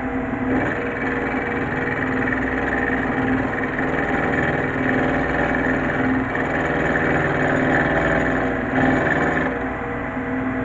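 Micro milling machine running, its spindle motor giving a steady pitched hum while the cutter machines cast iron; the rougher cutting noise sets in about half a second in and drops away about a second before the end.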